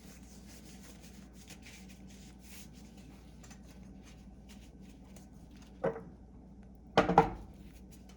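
Quiet handling noises at a stove: soft rubbing and rustling over a low steady hum, a short knock just before six seconds in, and a louder brief clatter about seven seconds in.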